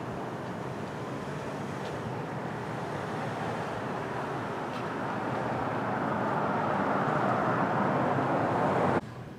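Steady rumble of a moving train, growing louder over the last few seconds and cut off abruptly near the end.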